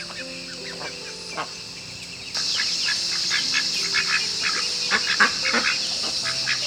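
A flock of farm ducks and geese calling, many short overlapping quacks and honks. A steady high hiss comes in suddenly about two seconds in and stays under the calls.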